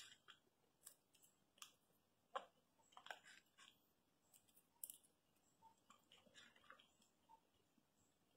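Gray squirrel chewing and cracking seeds: faint, irregular crisp cracks and crunches, clustered in places and separated by short pauses.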